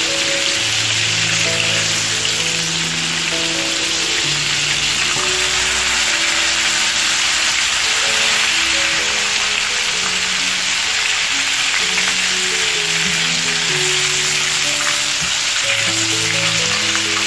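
Flour-coated chicken drumsticks deep-frying in hot vegetable oil in a pan, giving a steady sizzle. Soft background music of slow held notes plays underneath.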